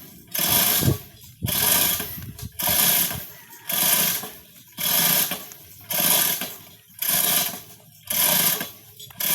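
Rhythmic mechanical ratcheting: a rattling burst about once a second, each lasting about half a second, repeating evenly throughout.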